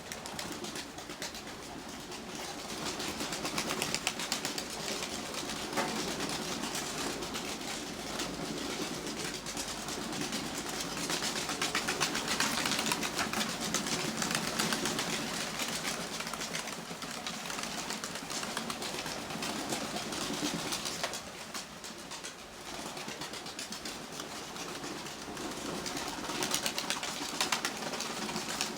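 Rain pattering steadily as a dense hiss of fine drops, heaviest around the middle, with pigeons also heard.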